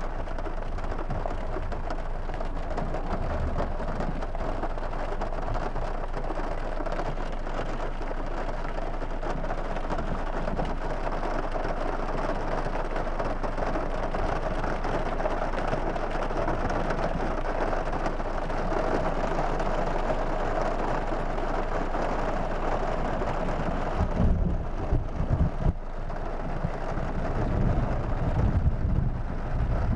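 Steady rain heard from inside a car: a dense, even hiss. Near the end, irregular low rumbles and thumps come in over it.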